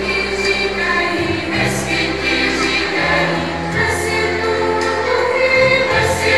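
Background music: a choir singing over long-held low bass notes.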